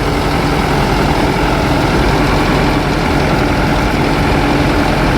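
Large diesel engine idling steadily and evenly.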